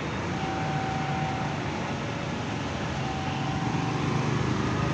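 Intercity bus diesel engines running in slow-moving, queuing traffic: a steady low rumble with road hiss.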